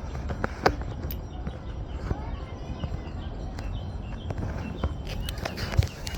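Footsteps of a person walking on pavement, a light tap about every half second, over a steady low outdoor rumble.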